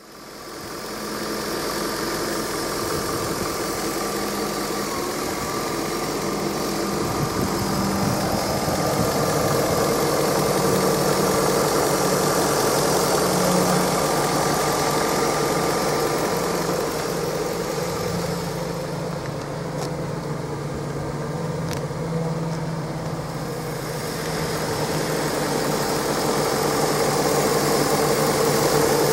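1997 Jaguar XK8's 4.0-litre AJ-V8 engine idling steadily, heard close up in the open engine bay, with a steady high hiss over the engine note.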